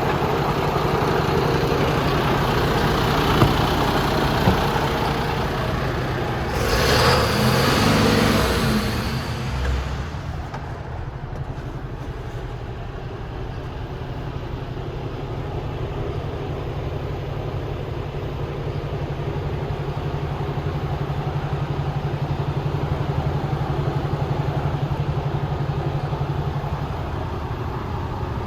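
Mercedes-Benz Antos 1827 truck's diesel engine running with a steady low hum. A couple of sharp clicks come a few seconds in, and a loud rushing hiss swells and fades about seven seconds in, after which the engine settles a little quieter.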